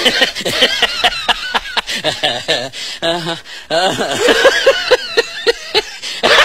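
Human voices talking and laughing in quick, choppy bursts.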